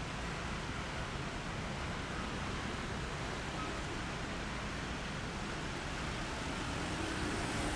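Steady road traffic noise, with a car and a motorcycle passing close by, a little louder near the end.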